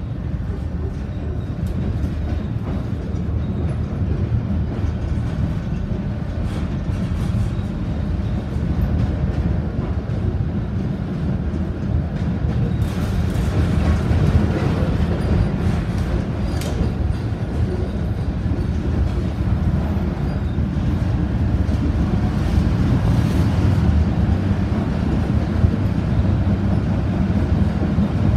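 Konstal 114Na tram running along the line, heard from inside the passenger saloon: a steady low rumble of the wheels and running gear on the rails, with a few clicks and rattles around the middle. It gets a little louder toward the end.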